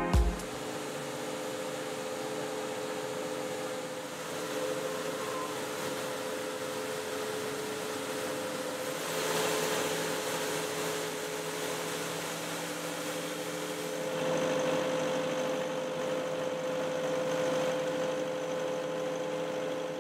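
Diesel street sweeper running steadily, with a constant whine over a steady mechanical hum. A short rush of noise comes about nine seconds in, and it grows a little louder from about fourteen seconds.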